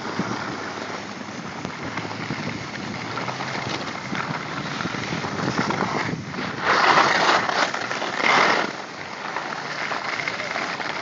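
Steady rushing scrape of sliding over packed snow on a ski slope, with wind buffeting the phone's microphone, louder for about two seconds past the middle.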